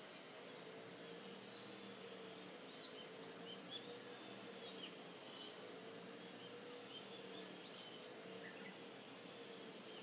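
Faint garden ambience: scattered short bird chirps, a handful of quick sweeping notes, over a steady low motor hum.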